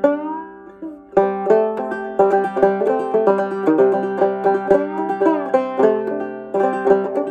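Fretless banjo played clawhammer style: a steady run of plucked, ringing notes, several of them sliding up or down in pitch as the fingers glide along the unfretted neck.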